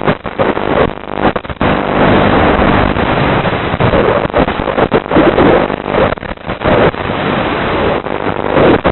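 Racing drone's electric motors and propellers buzzing hard, mixed with wind rushing over the microphone, with frequent brief dips in loudness.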